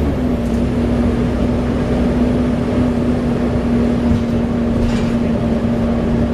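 Volvo B7TL double-decker bus's six-cylinder diesel running under way, heard from on board: a steady drone with a held whine that steps down slightly in pitch just after the start, then stays level.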